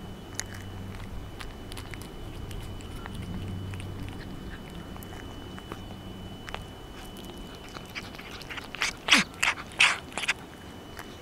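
A cat eating flakes of boiled carp off a plastic plate close up: small scattered chewing clicks, then a quick run of about five louder chewing and licking noises near the end.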